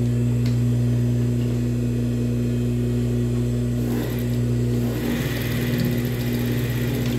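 Industrial sewing machine's motor humming steadily, then a little past halfway the machine runs for about three seconds, stitching with a fast, even rattle as the ruffle is sewn closed.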